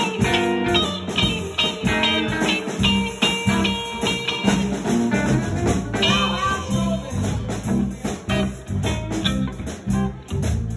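Live band music: an electric guitar plays a lead line of quick picked notes over bass guitar and drums, with bent notes about six seconds in.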